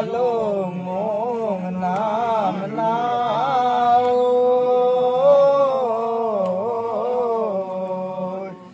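Devotional prayer chanting: voices chant a slow, melodic prayer with bending, drawn-out notes and one long held note about halfway through.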